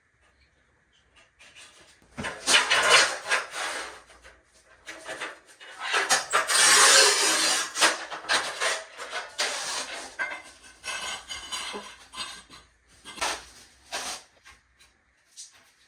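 Porcelain tile pieces being handled and dry-fitted by hand: irregular scrapes, rubs and clacks of tile against tile, with a longer stretch of scraping about six to eight seconds in.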